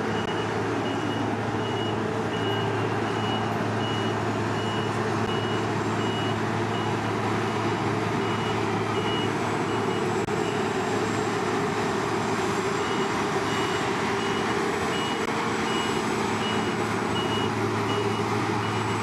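Heavy diesel engines of a Claas Lexion 460 combine harvester and a tractor-trailer truck running steadily at close range. Over the engines, a high-pitched reversing-style warning beeper sounds in an even rhythm, about one and a half beeps a second.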